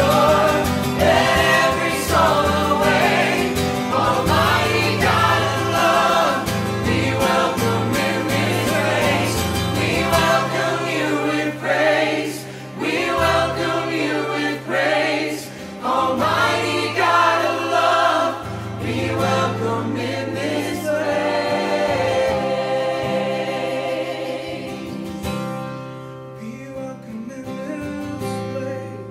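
Group of voices singing a contemporary worship song over instrumental accompaniment with a steady bass. The singing stops about 25 seconds in, leaving quieter held instrumental chords.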